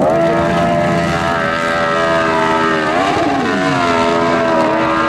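Dirt bike engine held at high revs under full throttle as the motorcycle climbs a steep loose-dirt slope, its pitch wavering briefly about three seconds in before steadying again.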